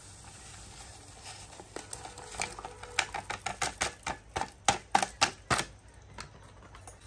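A plastic sachet of jelly powder shaken and tapped to empty it into a steel saucepan of hot water: a quick run of sharp taps and crinkles, about three a second, loudest in the middle and stopping about a second before the end.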